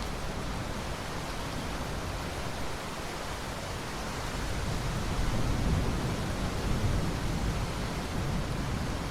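Steady hiss of heavy rain, with a low rumble of thunder swelling up about halfway through.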